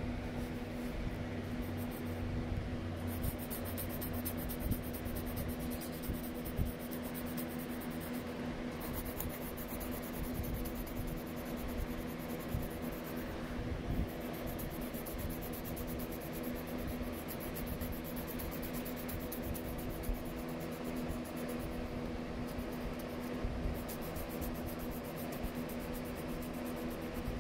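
A pen-shaped drawing tool rubbing and scratching in short repeated strokes on sketchbook paper, over a steady low hum.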